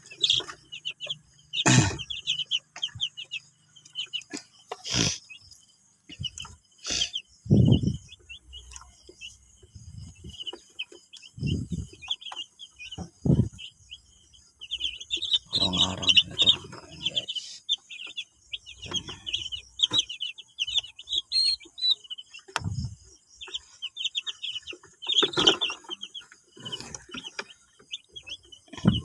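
A brood of young broiler chicks peeping continuously, many short high chirps overlapping, with scattered knocks and low thumps.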